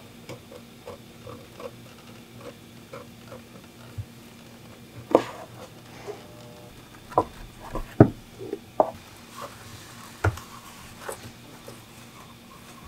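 Stanley utility knife blade cutting through leather on a cutting mat: a run of small ticks and scratchy clicks, with several louder sharp knocks and clicks between about five and ten seconds in.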